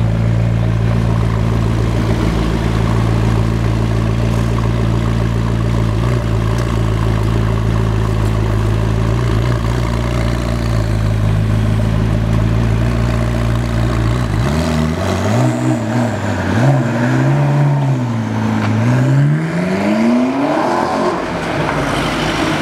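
McLaren 12C's twin-turbo V8 idling steadily, then revved up and down several times in quick throttle blips over the last several seconds.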